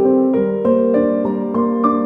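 Background piano music, a gentle electric-piano-like melody with notes changing about every half second.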